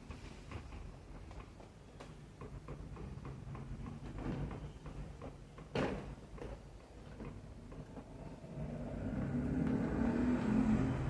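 Loren Sid 40 cm Turbo Wind table fan with irregular clicks and a sharp knock about halfway through, then its low hum growing louder over the last few seconds.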